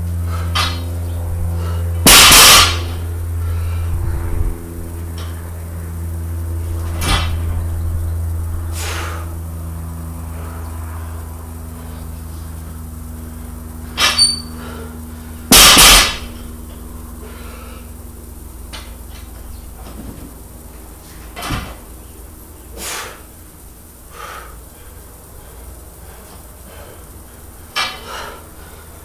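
Plate-loaded steel barbell coming down on the concrete floor with loud crashing clangs and a rattle of the plates, about two seconds in and again about fifteen seconds in, with lighter knocks and clinks of the bar between. A low hum with a few steady tones slowly fades away over the first twenty seconds.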